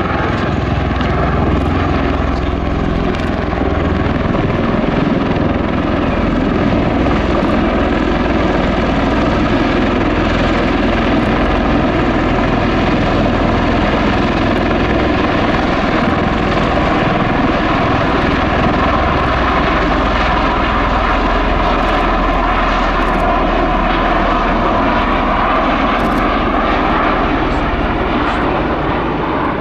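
Bell Boeing CV-22B Osprey tiltrotor in flight with its nacelles tilted up, its two Rolls-Royce AE1107C turboshafts and proprotors giving a loud, steady drone with a held whine. The whine sags slightly in pitch and recovers, and the sound eases a little at the very end.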